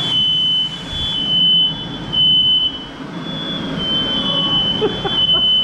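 Smoke alarm sounding a loud, high-pitched, nearly continuous tone with brief breaks, set off by smoke from cornbread frying in oil, over a steady rushing noise.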